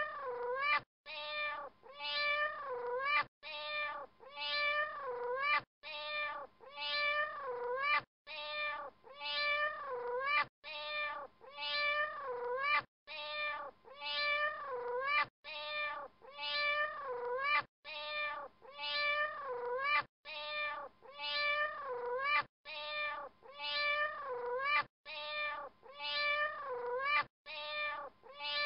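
A looped soundtrack of high, pitched animal-like cries. A short phrase of three or four wavering calls repeats almost identically about every two and a half seconds, with a brief silent break between repeats.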